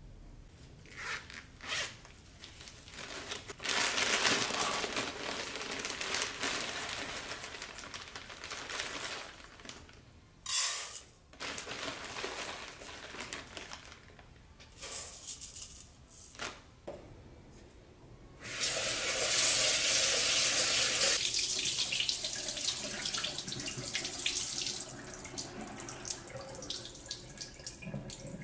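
Rustling of a sack of rice and its plastic liner and dry basmati rice being poured into a rice cooker's inner pot, with a short loud burst about ten seconds in. In the second half a tap runs and the rice is rinsed in the pot at the sink.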